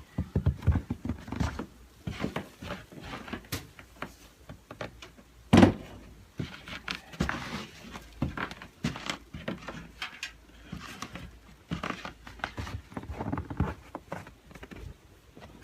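Irregular knocks, clicks and rustling of objects being handled, with one loud thump about five and a half seconds in.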